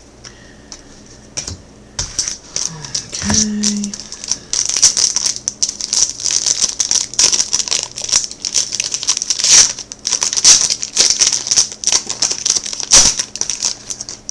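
Crinkling and rustling of plastic packaging as baseball trading cards are handled, a rapid crackle that grows louder and denser about two seconds in.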